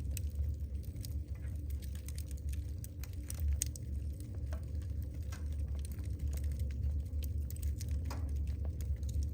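Wood fire crackling in a fireplace: irregular small sharp pops and snaps from the burning firewood over a steady low rumble.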